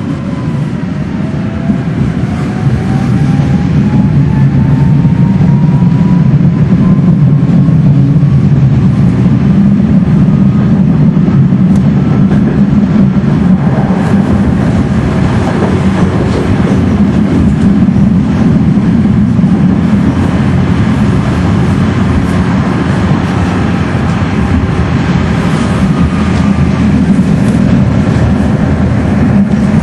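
Tram running on its rails, heard from inside the car: a steady low rumble with scattered clicks, and a faint whine that rises in pitch over the first ten seconds or so. The rumble grows louder over the first few seconds.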